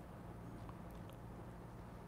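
Near silence: room tone with a faint steady low hum.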